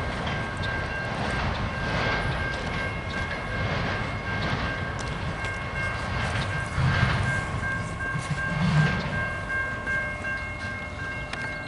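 Freight train rolling past, its cars making a rushing noise that swells about once a second. Steady high-pitched ringing tones run over it.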